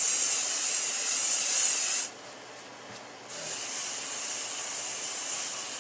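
Aerosol spray can hissing in two long sprays: the first stops about two seconds in, and after a pause of about a second a second, slightly softer spray begins.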